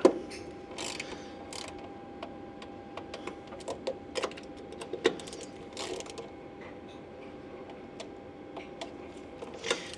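Small ratcheting torque wrench clicking in scattered, irregular strokes as the mounting bolts of a CFM56-5B engine's low oil pressure warning switch are tightened to a very small torque. A faint steady tone runs underneath.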